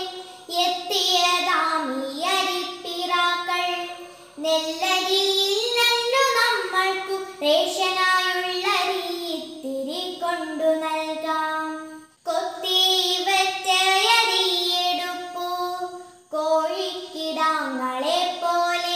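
A young girl singing a Malayalam children's poem as a chanted recitation without accompaniment: held notes that glide between pitches, in phrases broken by short pauses about 4, 12 and 16 seconds in.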